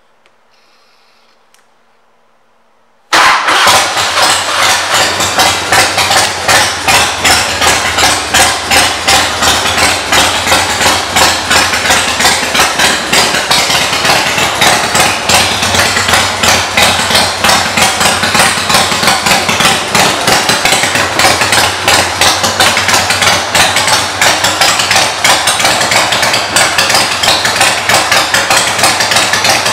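A 2003 Harley-Davidson Springer Softail's Twin Cam 88B V-twin, fitted with aftermarket pipes, starts about three seconds in and then runs at a loud, pulsing idle.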